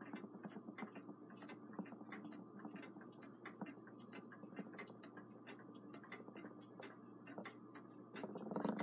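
Edison Model D phonograph motor gear train spinning freely in its frame, with the brass gears and solder-repaired pinion meshing in light, rapid ticking, several clicks a second. Handling noise starts near the end.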